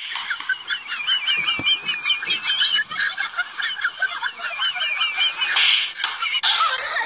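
A chorus of rapid, high chirping animal calls in two runs, with two brief noisy sounds near the end; it starts and cuts off suddenly.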